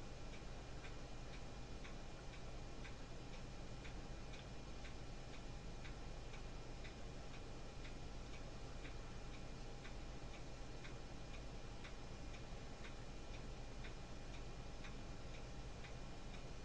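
Steady ticking, about two ticks a second, over a faint low hum.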